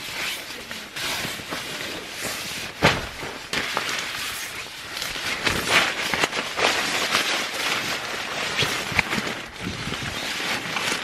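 Nylon tent fabric and an inflatable sleeping pad rustling and crinkling as they are handled and pushed into place, with one sharp snap about three seconds in.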